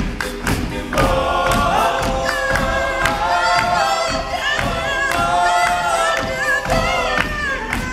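All-male a cappella group singing in close harmony, several voices holding and sliding between chords over a steady beat of short percussive hits, about two a second.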